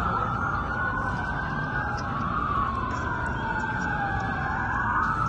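Several emergency vehicle sirens wailing at once, their slowly rising and falling tones overlapping.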